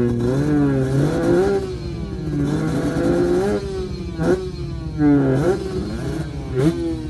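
Motorcycle engine revving, its pitch rising and falling, with sharp throttle blips about four and six and a half seconds in.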